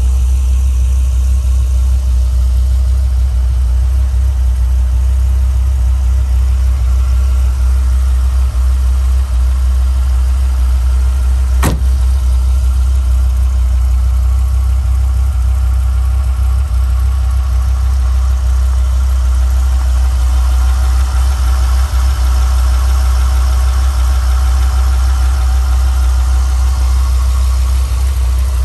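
2001 Dodge Viper GTS ACR's 8.0-litre V10 idling steadily, with a deep, even rumble. One sharp click comes about twelve seconds in.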